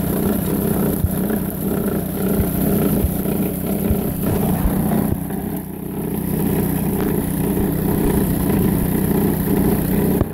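Mini gold trommel running: a small sealed waterproof electric motor turns the spinning barrel through a number 50 chain and sprocket, giving a steady mechanical hum with a regular pulsing and a few faint clicks. Water splashes from the discharge end onto the rocks.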